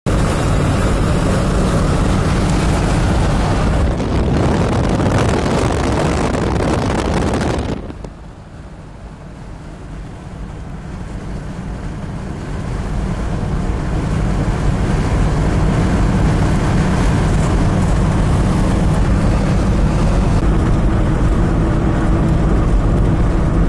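Road, engine and wind noise inside a moving vehicle's cabin at highway speed, a steady low hum under a rushing hiss. About eight seconds in the noise drops abruptly, then builds back up gradually over the next several seconds to a steady level.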